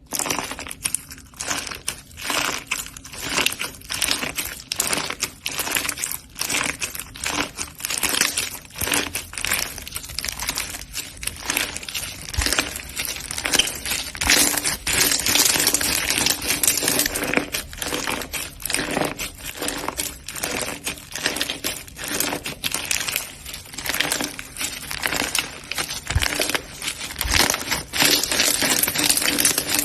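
Slime being worked, giving dense, irregular crackling and popping clicks throughout.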